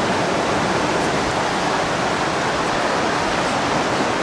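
Steady rushing of the Beas river's water, an even noise with no changes.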